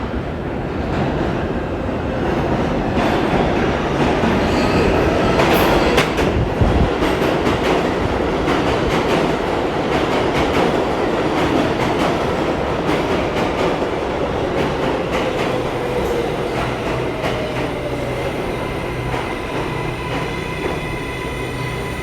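A New York City 7 subway train running on the rails as it comes into a station: a steady rumble with rail clatter and some wheel squeal. It is loudest about five seconds in, then eases off, with a faint falling whine in the middle as it slows.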